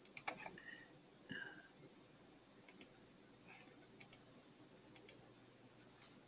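Near silence with faint, irregular clicks of a computer mouse being scrolled and clicked.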